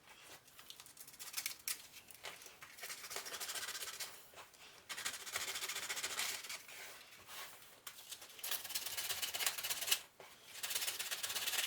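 Hand sanding: abrasive rubbed back and forth over small parts in stretches of a second or more with short pauses, scuffing the surface so carpet tape will stick.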